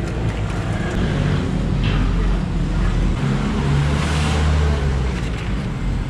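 Steady low rumble of road traffic, swelling about halfway through as a vehicle goes by.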